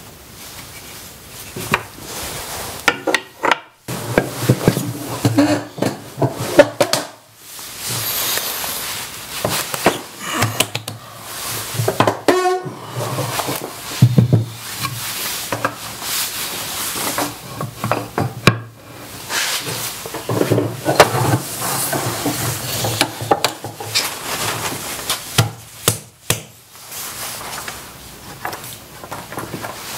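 Wooden bench dogs and a board being handled on a wooden workbench top: irregular knocks, taps and light scrapes of wood on wood.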